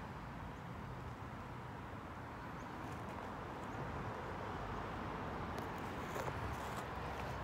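Steady outdoor background noise, mostly a low rumble, with a few faint clicks near the end.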